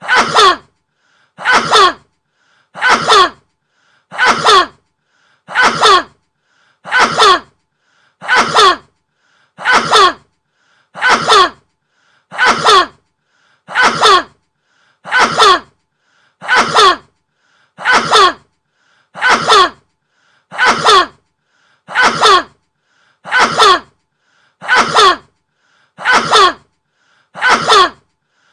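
A man's sneeze repeated over and over at an even pace, about one every second and a half; each sneeze has the same shape, a faint intake just before a short loud burst, as if one recorded sneeze is looped.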